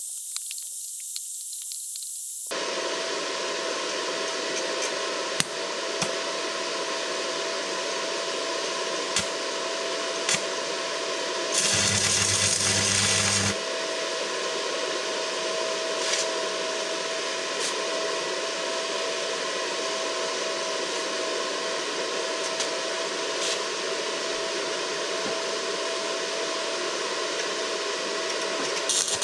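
Stick welding with a Suzukid WELD-ON140 arc welder set near 140 amps: the electrode arc crackles and hisses steadily while tack welds are laid. It starts about two and a half seconds in, with a steady thin whine under it, and there is a louder stretch with a low hum about twelve seconds in.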